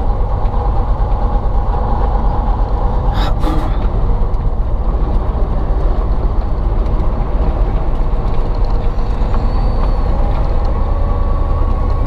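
Ural timber truck's YaMZ-238 V8 diesel running steadily, with a short hiss about three seconds in.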